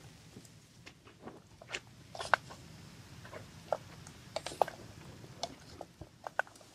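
Wooden spatula stirring food in an aluminium camping pot, with irregular light knocks and clicks as it strikes the pot's sides.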